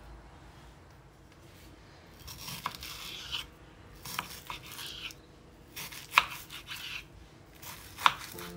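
Knife slicing through a raw chicken breast on a bamboo cutting board: about four cuts, each a short rasp ending in a sharp knock of the blade against the board.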